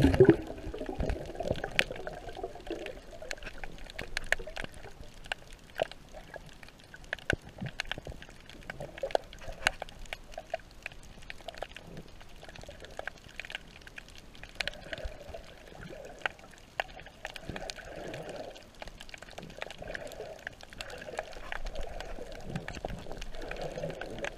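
Underwater sound: scattered sharp clicks and crackles over a muffled sloshing of water.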